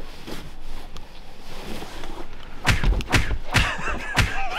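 A lake trout thrashing in the hand, its tail slapping against the camera and the person filming: about four heavy thuds in quick succession over the second half.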